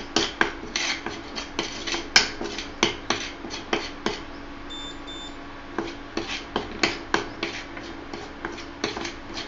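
Steel spoon scraping and clinking against a steel kadai while stirring chilli powder and turmeric in hot mustard oil, about two to three strokes a second, with a pause near the middle. Two short beeps sound in that pause, over a steady low hum.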